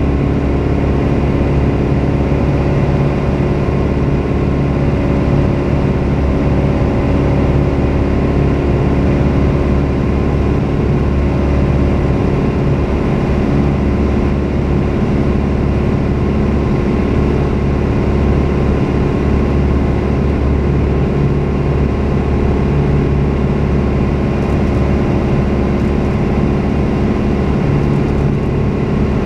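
Piper Cherokee 180's four-cylinder Lycoming O-360 engine and propeller running steadily, heard from inside the cockpit.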